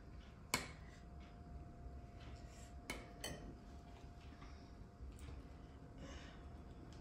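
A metal spoon clinks once against a ceramic plate about half a second in, followed by two lighter clinks of tableware a little before three and a quarter seconds in. Between them, faint rustling of rice being mixed by hand on the plate.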